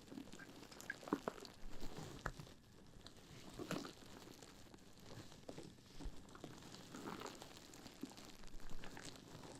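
Mesh bath pouf being scrunched and rubbed, giving soft, irregular crinkling and crackling with scattered small clicks.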